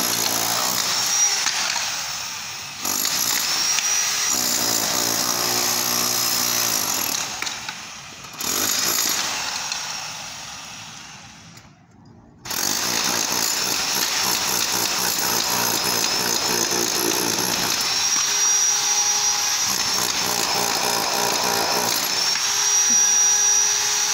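Electric demolition hammer with a chisel bit, hammering plaster and tile off a brick wall. It runs in long loud stretches and stops briefly a few times before starting again.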